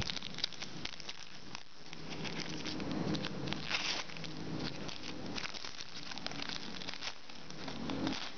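A pack of trading cards being opened and handled: irregular crinkling and crackling of the wrapper and rustling of cards, with a brief tearing hiss about four seconds in.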